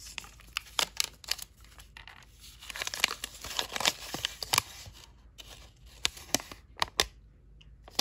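Sheet of paper crinkling and crackling as it is unrolled from around a lighter and flattened out by hand. The crackling is densest about three seconds in, then thins to scattered single crackles.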